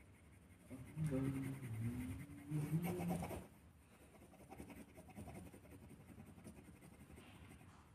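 A man's voice for about three seconds, then faint scratching.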